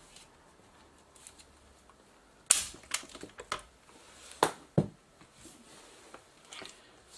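Sharp plastic and metal clicks and knocks from handling a partly disassembled JVC GY-HD201E camcorder. The loudest comes about two and a half seconds in, followed by four more over the next two seconds or so.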